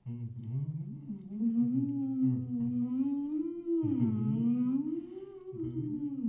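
A woman and a man humming with mouths full of marshmallow, long wavering notes that slide slowly up and down in pitch over a steadier lower drone.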